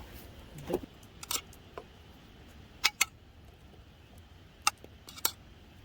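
A handful of short, sharp clicks and light taps at irregular times, the loudest two about three seconds in and near the five-second mark.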